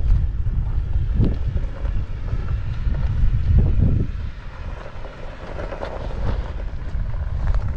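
Wind buffeting the microphone in gusty low rumbles that ease off about halfway through, over a Jeep Wrangler Rubicon crawling slowly over a loose rocky trail.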